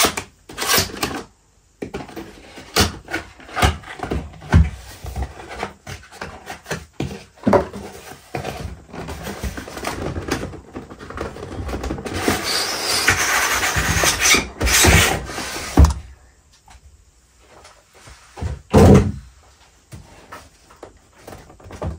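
Cardboard packaging being handled: a motherboard box is turned and tipped with scattered knocks and taps, and its printed cardboard sleeve is slid off the inner box in a long scraping slide about midway. Near the end the plain inner cardboard box is set down with a couple of louder knocks on a wooden desk.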